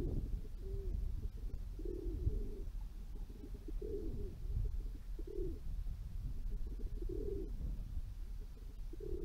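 Feral rock pigeons cooing: a string of short, low coos every second or two, over a steady low background rumble.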